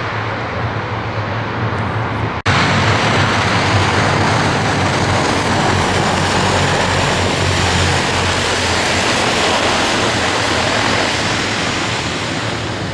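Lockheed L-1049 Super Constellation's four Wright R-3350 radial piston engines and propellers running at power during a ground roll, a loud, steady noise with a low drone. A split-second dropout comes about two and a half seconds in, and it is a little louder after it.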